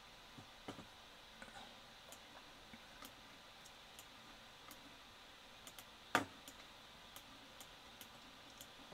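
Faint, irregular computer mouse clicks, with one louder click about six seconds in, over a quiet room background.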